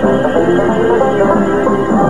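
Instrumental opening-credits theme music for a TV western, with plucked strings to the fore.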